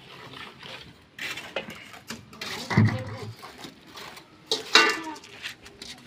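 Irregular clanks and knocks of bricklaying work, with metal pans and bricks being handled, and a heavy thud about three seconds in.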